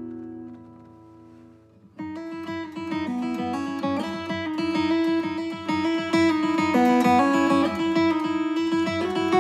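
Background acoustic guitar music. A held chord fades out, then about two seconds in a fingerpicked guitar piece begins, with steady plucked notes.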